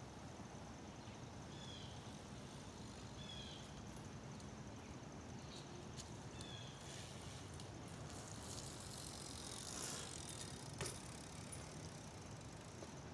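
Faint BMX bike riding on wet ground, its tyres rising to a hiss about eight to ten seconds in, with a sharp click just after. A few short high chirps sound over a steady outdoor background.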